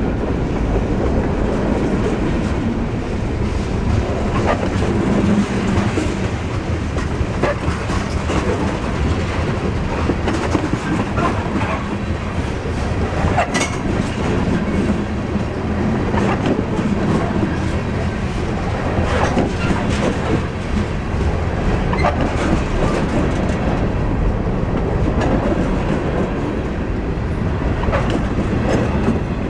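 Freight cars of a long CSX mixed-freight train rolling past with a steady rumble, their wheels clicking irregularly over rail joints.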